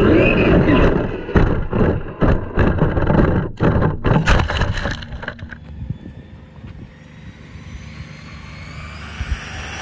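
Team Corally Kronos XP 1/8 brushless monster truck heard from its onboard camera: a loud rushing noise at speed, then from about a second in a rapid run of knocks and thuds for about four seconds as the truck tumbles over into tall grass, after which it goes much quieter.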